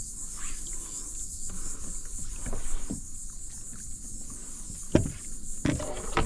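Steady high-pitched drone of insects, with occasional water splashing and knocks against the kayak as a caught black drum is held in the water alongside it. A sharp knock about five seconds in is the loudest sound.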